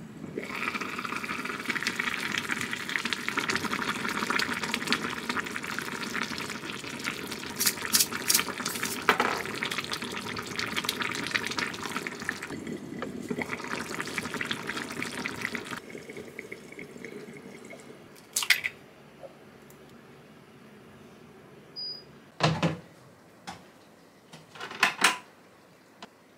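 Kitchen tap running water into a sink for about fifteen seconds, then turned off abruptly. A few separate knocks and clatters follow near the end.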